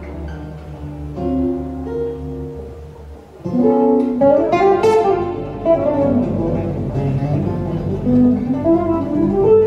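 Nylon-string classical guitar and plucked upright double bass playing together. A soft, sparse stretch of held notes gives way about three and a half seconds in to louder, busier playing.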